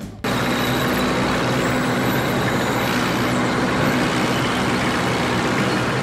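A steady vehicle engine running sound with a low hum under it, starting suddenly just after the start and fading out at the end.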